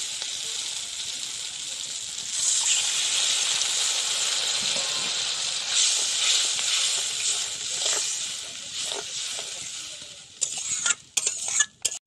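Spiced onion-tomato masala sizzling in hot oil in a kadai while a metal spatula stirs it; the sizzle surges about two seconds in as water goes into the pan, then dies down as it becomes a watery gravy. Near the end, a few sharp clicks of the spatula against the pan.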